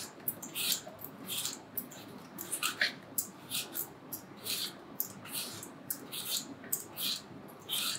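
Metal Y-peeler shaving the skin off a Granny Smith apple: a series of short, crisp scraping strokes, roughly one or two a second, as each strip of peel comes away.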